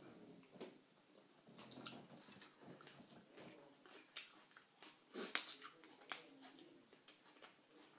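Faint chewing and mouth sounds of a person eating, with scattered small clicks; the sharpest click comes about five seconds in.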